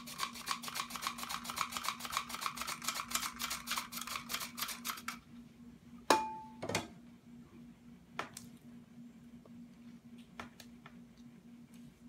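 Hand-operated flour sifter working rapidly, about seven clicks a second, then stopping after about five seconds. A sharp clink with a brief ring follows as the sifter is set down on a saucer, then a few light taps of a spatula in a glass mixing bowl.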